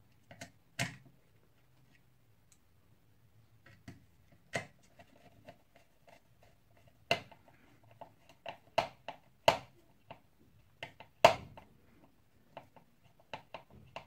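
Scattered sharp clicks and small knocks of a Phillips screwdriver turning a screw into a vacuum cleaner motor's housing, with handling of the metal parts; the clicks come more often in the second half.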